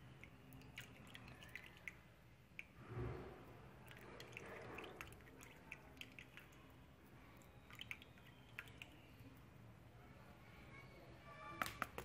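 Faint trickle and drips of water running off soaked fenugreek seeds from a tilted plastic tub into a metal basin, with scattered small clicks. A brief louder knock comes about three seconds in, and a few sharp clicks come near the end.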